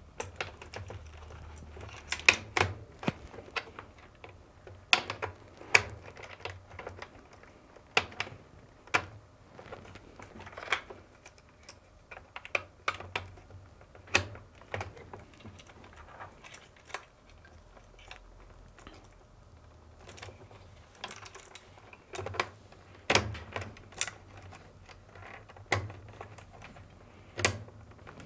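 Plastic wire-harness plugs being pushed onto a washing machine's motor control module, with wires handled against its plastic housing: irregular sharp clicks and light rattles.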